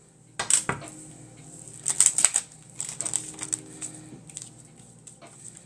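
A deck of oracle cards being shuffled by hand: a string of quick papery riffles and card slaps, loudest about half a second in and again about two seconds in.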